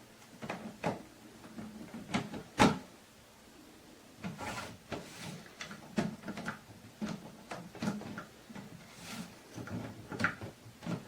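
Plastic knocks and clicks of a pet food storage container's lid being handled and pressed against its rim: about a dozen irregular knocks, the loudest a sharp knock about two and a half seconds in.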